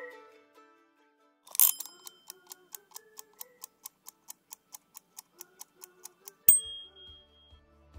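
Clock-like ticking, about three and a half ticks a second over a faint melody, opened by a sharp hit and ending in a sharp strike with a brief high ring.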